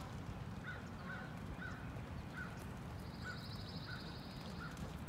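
A bird calling a short, clipped note over and over, about seven times, with a buzzy trill joining from a little past the middle for about two seconds, over a steady low rumble.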